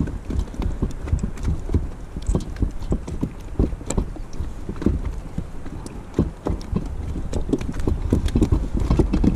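Irregular hollow knocks and slaps, several a second, from small waves slapping the plastic hull of a Cambridge Kayaks Barracuda sit-on-top fishing kayak, over a steady low rumble of wind on the microphone.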